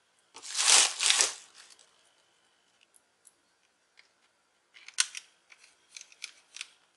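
Hand-tool work inside an open laptop while a small screw on the cooling fan is fastened with a screwdriver: a loud scraping rustle in two parts about a second in, then a string of sharp light clicks from about five seconds in.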